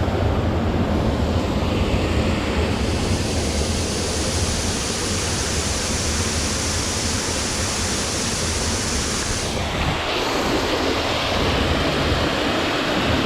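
Steady rush of a waterfall's falling water, a dense even roar; about ten seconds in the high hiss dips briefly and changes.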